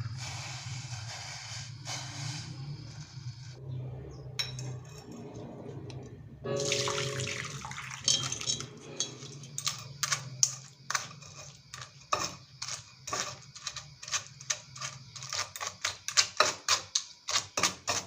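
Water running or pouring in two stretches, then a metal utensil clinking and scraping against a pot or bowl in quick repeated strokes that grow faster and louder towards the end.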